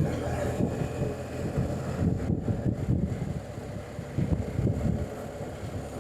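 Wind buffeting the microphone while riding a BMW R1250 GS Adventure motorcycle, with a low engine and road rumble underneath. No rattle stands out from the newly fitted radiator guards.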